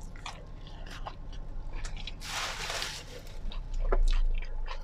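A person biting into and chewing a paper-wrapped tamiya (falafel) sandwich, with many small wet chewing clicks. A short rustling burst comes about two seconds in, and a low thump near the end.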